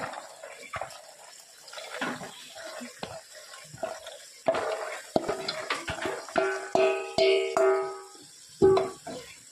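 Soaked chickpeas sliding and tumbling off a steel plate into an aluminium pressure cooker as a wooden spoon pushes them, with scraping and clattering. In the second half the metal clanks several times and rings out briefly after each knock.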